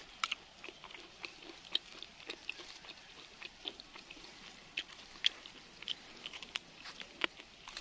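Close-up chewing and crunching of a small, firm green fruit being bitten and eaten: a string of short, crisp crunches at irregular intervals.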